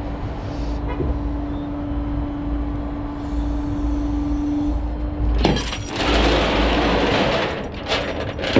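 Heavy vehicle running with a low rumble and a steady hum that stops about five seconds in, followed by a loud hissing, clattering burst of mechanical noise, as of tow equipment being worked.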